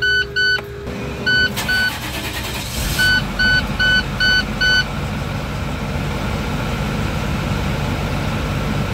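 Dashboard warning chimes beeping in short groups as the ignition key is turned on, then the International MaxxForce diesel engine starts about three seconds in and settles into a steady idle.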